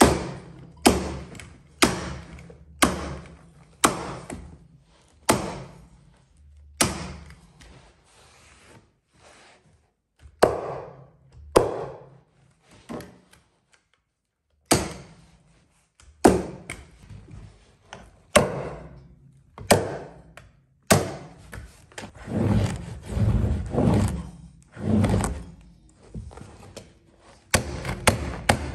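Sharp knocks from fastening a carpet runner to wooden stairs, about one a second, with a break of a few seconds in the middle, then quicker, denser knocking toward the end.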